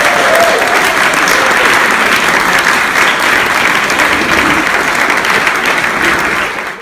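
Audience of seated dinner guests applauding, a dense steady clapping that fades out near the end.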